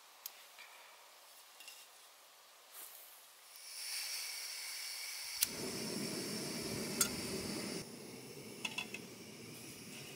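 Primus gas canister stove being lit: gas hisses from the burner, then a sharp click about five seconds in as the flame catches and burns steadily with a low rumble under the hiss. A second sharp click follows about two seconds later.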